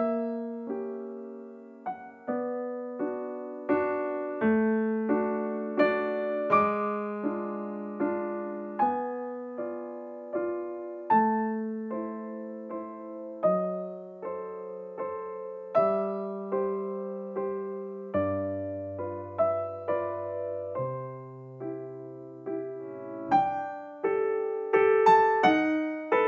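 Background music: a solo piano playing a melody over lower bass notes, each note struck and then fading.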